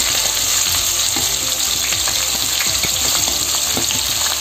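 Chopped onions sizzling in hot oil with cumin seeds and dried red chillies in a kadhai as they are tipped in: a steady frying hiss with small crackles.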